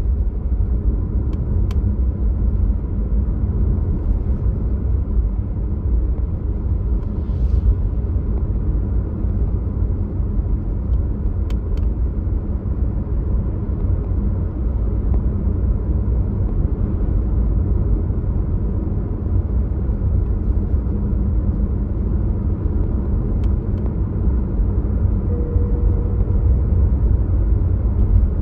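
Steady low road and tyre rumble of a Tesla Model Y being driven, heard from inside the car, with no engine note. A few faint short clicks stand out over it now and then.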